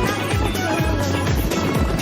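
Pop music soundtrack with a steady kick-drum beat and a wavering melody line.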